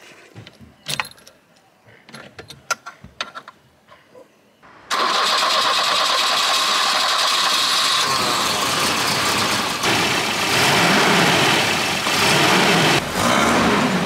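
Light clicks of a key going into and turning in the ignition of a Volvo 240. About five seconds in, its redblock gasoline inline-four engine starts and runs, then is revved a few times near the end.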